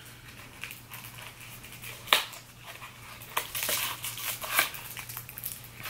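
An eyeshadow palette's packaging being handled and opened by hand: scattered crackles and light clicks, with a sharper click about two seconds in.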